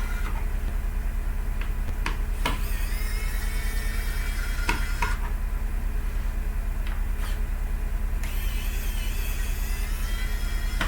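Steady electrical mains hum, a low buzz that runs underneath everything, with a few sharp clicks scattered through it.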